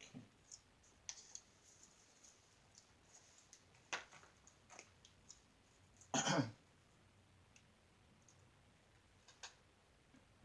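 Faint scattered clicks and taps from handling acrylic painting tools (brush and palette), with a sharper click about four seconds in. A brief throat-clearing or vocal sound comes about six seconds in.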